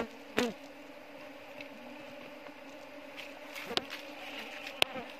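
A swarm of Asian honeybees (Apis cerana indica) buzzing steadily, with a few sharp clicks and knocks, about half a second in and again near the end.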